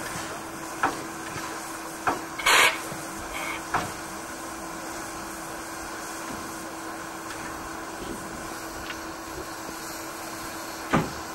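Steady hum and running noise of a standing steam locomotive, with a few scattered metal knocks from work at its tender and a short loud hiss-like burst about two and a half seconds in.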